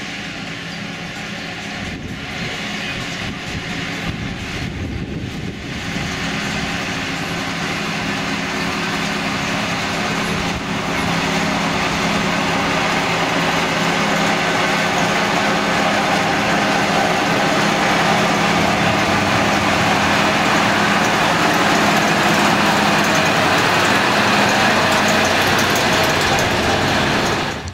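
Small two-axle diesel shunting locomotive (Kleinlok) with its engine running steadily, growing louder in steps about six and eleven seconds in and then staying loud.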